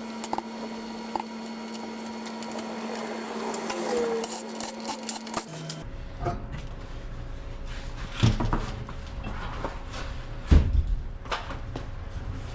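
Tools clinking and knocking against metal while a coilover is adjusted: scattered light clicks, then irregular clanks with two louder thuds in the second half.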